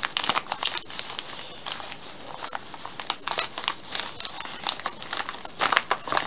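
Paper mailing envelope crinkling and rustling in irregular bursts as gloved hands open it and work inside it, loudest near the end.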